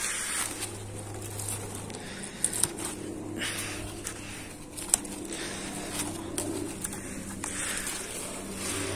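Chayote vines rustling as the shoots are gripped and pulled by hand, with a few sharp snaps of stems breaking. A bird calls in the background.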